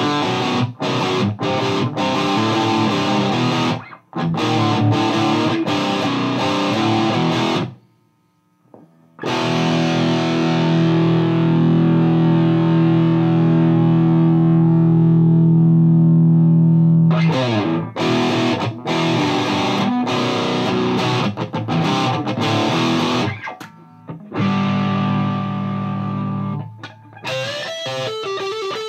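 High-gain distorted electric guitar, a Gibson Les Paul through a Mesa Boogie Dual Rectifier in Modern mode, playing choppy muted riffs that stop briefly about eight seconds in, then a long ringing chord, more chopped riffing and another held chord, ending with bending notes.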